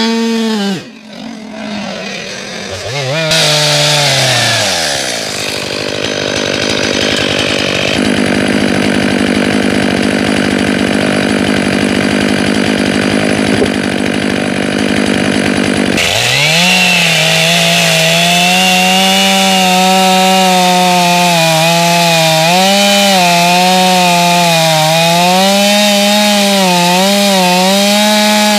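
Gas chainsaw cutting through a log at full throttle. It drops off about a second in and winds down, runs steadily at a lower level for several seconds, then revs back up about halfway through and cuts under load, its pitch wavering as the chain bites into the wood.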